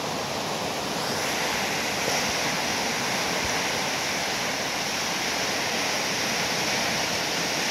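Flash-flooded creek: fast, muddy floodwater rushing and churning through standing waves, a steady, unbroken rushing noise.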